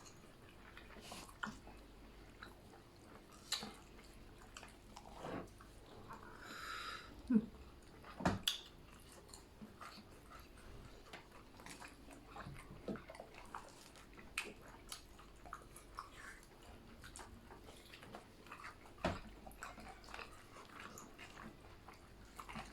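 Eating sounds of grilled chicken being chewed and bitten: soft, scattered smacks, clicks and mouth noises, with a couple of louder knocks about seven and eight seconds in.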